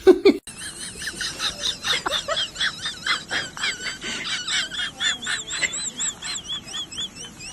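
Rapid, repeated high-pitched animal calls, about three a second, each with a wavering pitch, starting about half a second in.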